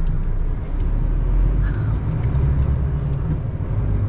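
Lorry engine running with road noise, heard from inside the cab as it drives along: a steady low drone.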